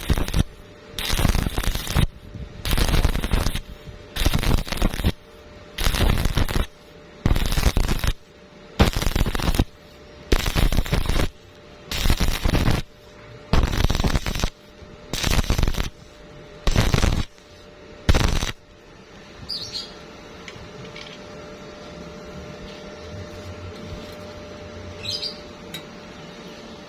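Stick-welding arc crackling in about a dozen short bursts, each about a second long with brief gaps between, as the arc is struck and broken to lay the weld in stitches. The bursts stop about two-thirds of the way in, leaving a faint steady hum.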